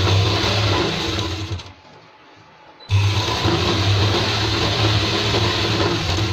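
DECENT sewing machine stitching a seam in a sleeve, running steadily. It slows and stops about a second and a half in, then starts again sharply about three seconds in and keeps running.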